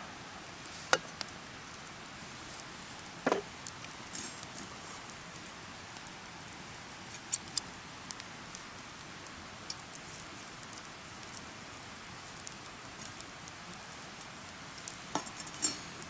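Wood campfire crackling, with a steady hiss and scattered small pops and cracks. A few louder sharp knocks come about a second in, at about three seconds, and twice near the end.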